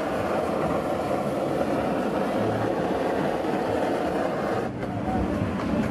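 Handheld butane blowtorch flame burning with a steady hiss over the cheese on a crepe. The hiss dips briefly about three-quarters of the way through.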